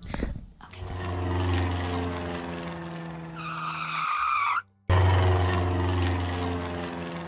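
Jet airliner sound effect: a steady low engine drone with a hiss and whine that rise over a few seconds. It plays twice in a row, cutting off suddenly about four and a half seconds in and starting over. A brief knock comes right at the start.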